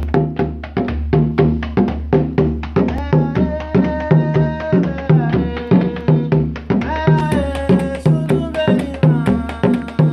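Djembe played by hand together with stick-struck dunun bass drums, in a fast, steady rhythm of several strokes a second. About three seconds in, a sustained melody line that bends in pitch joins over the drums.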